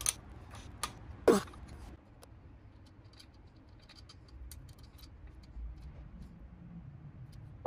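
Steel wrenches clicking and clinking against the rocker arm and valve adjuster of a vintage Harley-Davidson engine, with two louder metallic knocks in the first second and a half, then lighter scattered ticks over a low hum.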